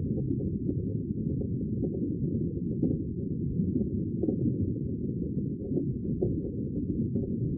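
Sea water, a steady, deep, muffled rumble of surf with nothing in the higher range, and faint small clicks scattered through it.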